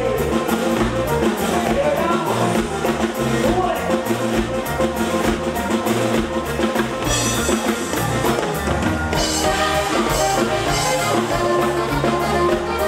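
Band music with a drum kit keeping a steady beat, with bass and guitar, from a live band.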